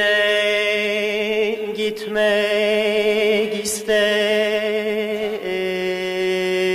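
Turkish folk song: a singer holding long wavering notes with vibrato over a steady low drone, in phrases broken by short pauses, the melody stepping down about five seconds in.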